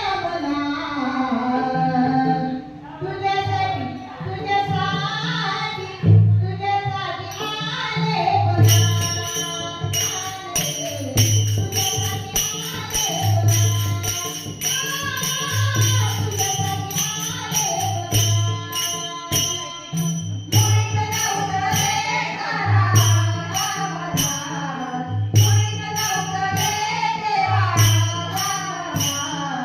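A woman singing a Marathi gaulan, a devotional folk song to Krishna, over a steady drum beat, with jingling percussion coming in about eight seconds in.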